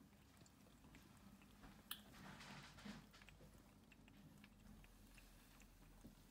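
Near silence: faint room tone with scattered soft clicks and rustles, and one sharper click about two seconds in.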